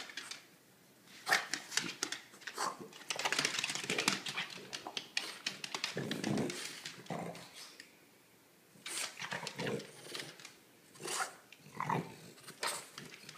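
French bulldog making short dog noises in scattered bursts, mixed with sharp clicks, as it moves about on a hardwood floor.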